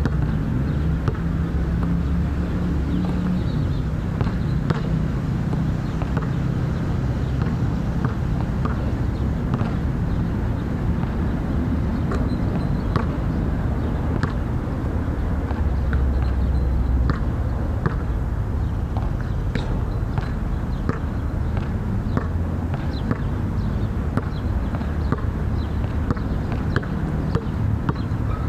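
Steady low engine rumble, with scattered light knocks and taps throughout.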